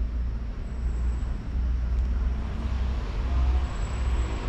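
Wind buffeting the camera's microphone: a steady, uneven low rumble with a soft hiss above it.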